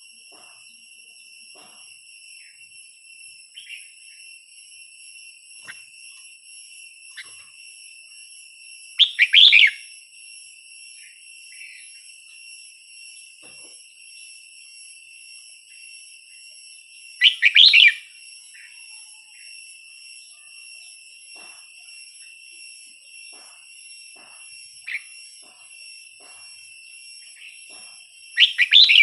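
Red-whiskered bulbul singing short loud phrases, three about eight seconds apart, with a few soft chirps between. A steady high-pitched whine runs underneath.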